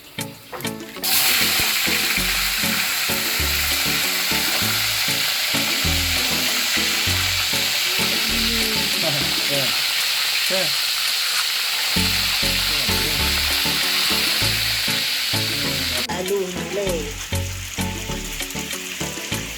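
Food frying in hot oil in a pan: a loud, steady sizzle that starts sharply about a second in and drops off near the end, over background music with a beat.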